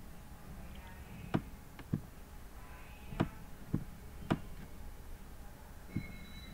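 Computer mouse clicking: six short, sharp clicks at uneven intervals over faint room noise.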